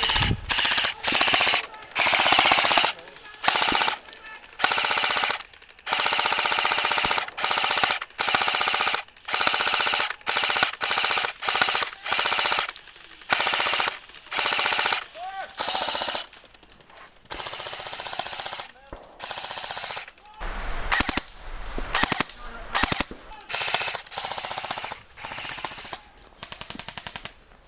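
Airsoft rifle firing full-automatic: many short bursts of rapid clicking shots with brief pauses between them, loud at first and somewhat quieter in the last part.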